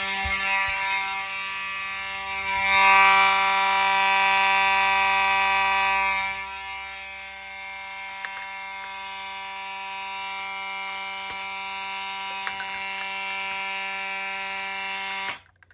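Fire alarm horn sounding one continuous, unbroken tone, set off by a test activation of a pull station. It is louder for a few seconds early on, then steadier and quieter, and cuts off suddenly just before the end as the alarm is silenced.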